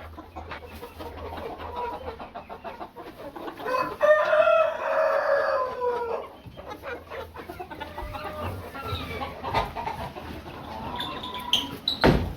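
A rooster crowing once, a long call about four seconds in that drops in pitch at the end, over chickens clucking. A sharp knock near the end.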